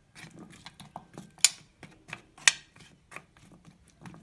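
A spoon clicking and scraping against a glass baking dish as chermoula is spread over sliced potatoes and carrots, with two sharper clinks about a second apart.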